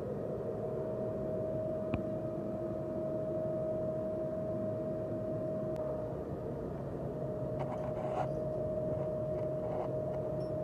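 A steady machine hum with a constant whine, a sharp click about two seconds in and a few light clicks near the end.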